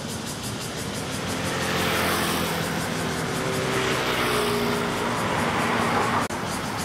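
A motor vehicle passing close by on the street: its engine noise swells and its note slides lower as it goes past. The sound breaks off sharply about six seconds in.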